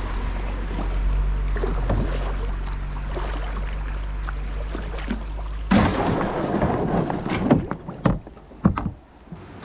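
A plastic kayak gliding in shallow water, then about six seconds in its hull scrapes and grinds up onto a stony river bank, with several loud knocks as it comes to rest.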